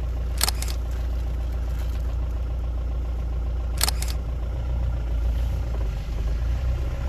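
Steady low rumble of a vehicle on the move, with two sharp double clicks, one about half a second in and another about three seconds later.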